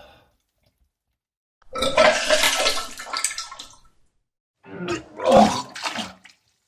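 A person vomiting: a long, wet retching gush lasting about two seconds, then after a short pause a second, shorter voiced heave.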